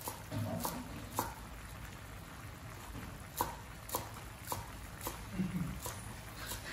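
Wooden spatula knocking and scraping against a metal wok while stir-frying vegetables: sharp knocks about twice a second, with a pause of about two seconds after the first three.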